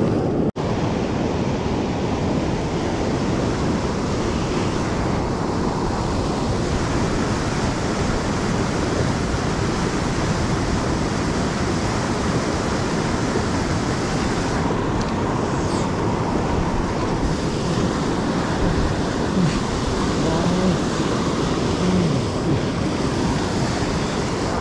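Steady rushing noise, cutting out briefly about half a second in.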